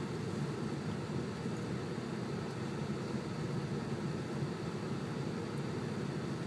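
Steady low rumble of a vehicle creeping along at low speed, heard from inside the cab.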